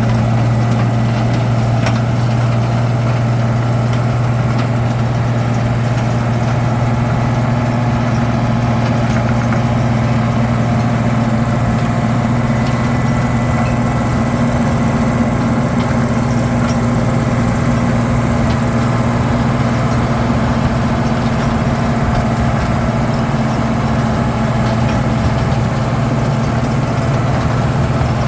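Road milling machine's diesel engine running steadily, a constant low drone with no change in pace.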